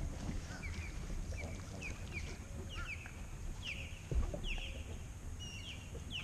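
Birds calling nearby: short descending chirps repeated one or two a second, over a steady low rumble. A single thump lands about four seconds in.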